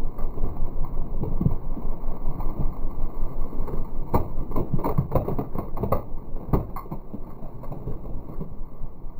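Knobby vehicle tire rolling slowly over snow-covered boards and plastic junk, packing the snow down. A cluster of sharp cracks and snaps comes about four to seven seconds in as the pieces break under the tire.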